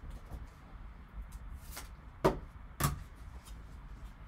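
Trading cards in rigid plastic holders being handled and set down on a table: a brief rustle, then two sharp plastic taps about half a second apart.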